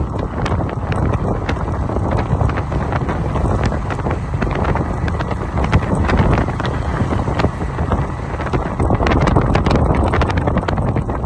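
Wind buffeting the microphone as it moves along, a steady low rumble broken by many scattered short clicks.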